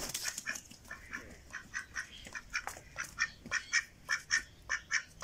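Domestic mallard-type drake calling in a rapid run of short raspy quacks, about four a second, growing louder about halfway through.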